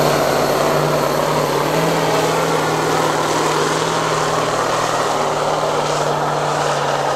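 Competition pulling tractor's engine running, a loud steady note that steps up a little about two seconds in.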